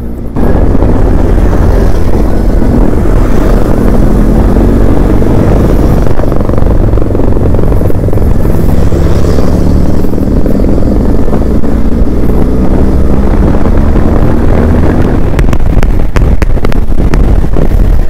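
Motorcycle engine running under way, its pitch gliding up and down with speed, under heavy wind rumble on the camera's microphone. Sharp clicks and buffets come near the end.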